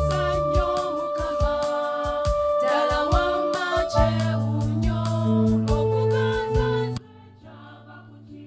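Church choir of women's voices singing a hymn, with regular percussive beats under the held notes. The music cuts off abruptly about seven seconds in.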